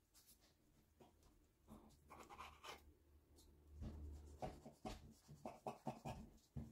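Faint scratchy crackles of a kitchen knife cutting through rolled layers of filled phyllo pastry on baking paper, growing busier about halfway through.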